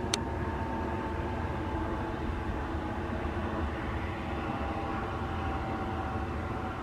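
Jet2 airliner's jet engines running at taxi power: a steady rumble with a whine that slowly drops in pitch.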